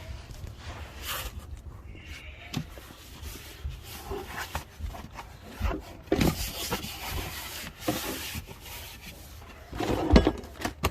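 Hands-on handling noise: irregular rubbing and scraping with scattered light knocks, and a sharper knock near the end.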